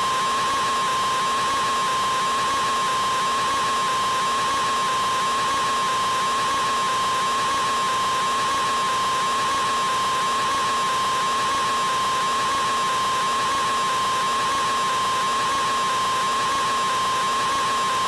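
A man's open-mouthed scream, stretched out into one unbroken, high-pitched "aaaa" that holds the same pitch and loudness without a break.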